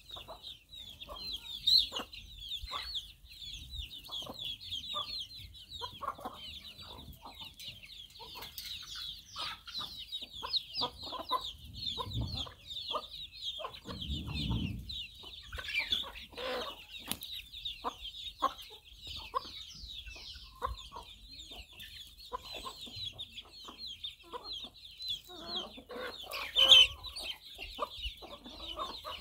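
A flock of hens and young chicks feeding. The chicks keep up an unbroken chorus of high, quick peeps, the hens cluck on and off over it, and one louder call comes near the end.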